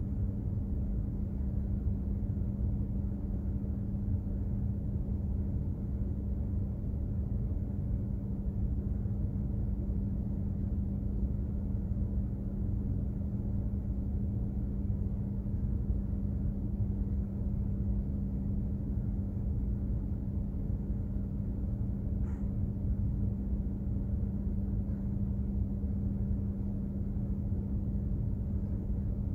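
Steady low rumble of a container ship under way, heard on board, with a constant droning hum from its engine and machinery.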